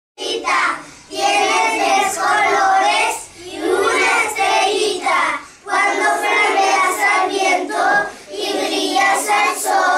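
A group of young children reciting a poem together in a sing-song unison chant, in short phrases with brief breaks between them.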